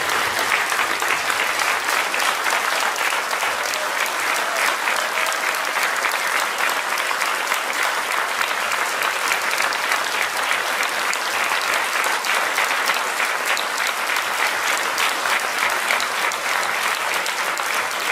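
A large audience applauding steadily: a dense, unbroken wash of many hands clapping.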